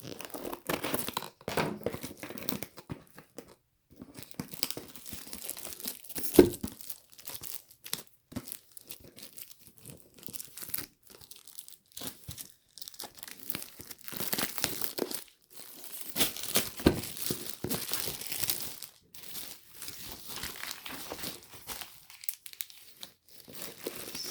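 Cardboard box and plastic packaging being torn open and crinkled by hand, with irregular rustles, rips and sharp crackles.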